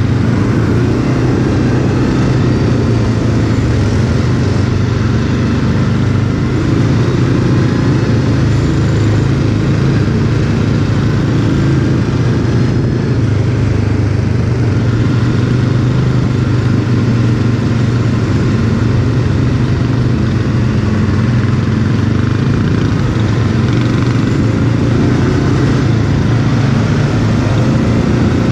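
Quad bike (ATV) engine running loudly and fairly steadily as the quad is ridden off-road.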